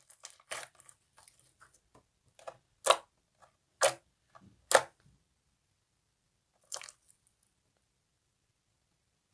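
Slime squeezed and pressed by hand, giving a string of short crackling pops about a second apart, the last a few seconds before the end.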